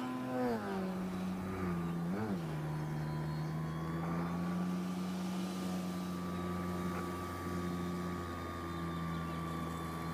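Engine and propeller of a radio-control Edge 540T aerobatic plane running in flight. The pitch drops as the throttle comes back in the first second, blips up and down briefly about two seconds in, then holds a steady tone.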